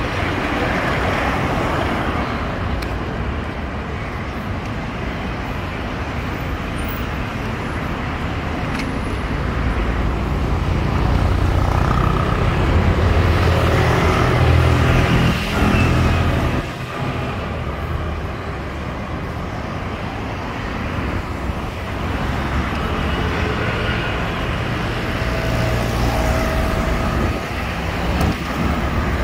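Road traffic: cars and motorcycles passing, a steady mix of engine hum and tyre noise. It grows louder for several seconds in the middle as a vehicle goes by close, then drops off suddenly.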